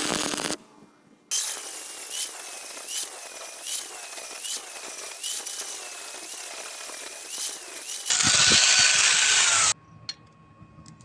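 A power tool working metal, running for several seconds with a wavering whine that repeats about once a second, then a louder, harsher stretch for about a second and a half before stopping abruptly.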